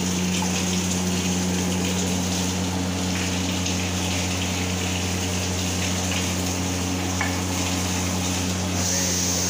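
Tap water running and splashing from a faucet onto hands and chopped chicken as it is rinsed in a steel pot, over a steady low hum.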